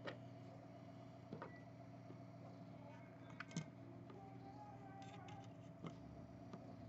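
Near silence: faint steady room hum with a few light clicks and taps of small parts or tools being handled on a workbench.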